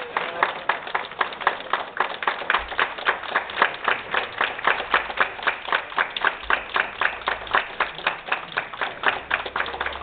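A crowd clapping in a steady, even rhythm, about four claps a second: applause as a ribbon is cut.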